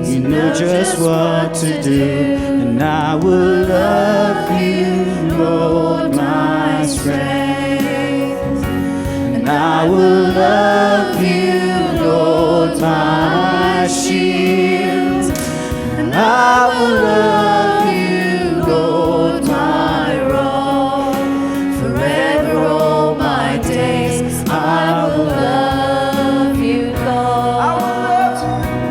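A church choir singing a gospel worship song with instrumental accompaniment.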